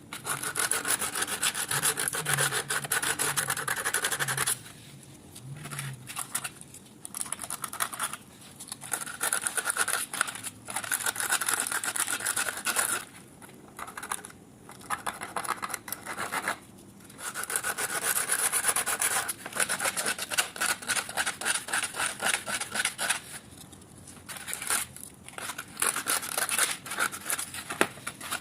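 Rapid back-and-forth abrasive rubbing on the wrench's rusty steel, coming in runs of a few seconds with short pauses in between.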